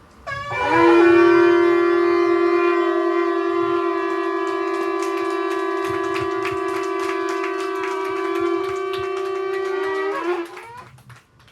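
Shofar blown in one long unbroken blast of about ten seconds. It slides up into a steady note at the start and bends briefly upward just before it cuts off.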